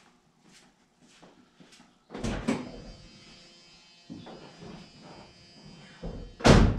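A few footsteps, then the pickup truck's door opening with two clunks about two seconds in. Rustling follows as someone gets in, and the door slams shut near the end, the loudest sound.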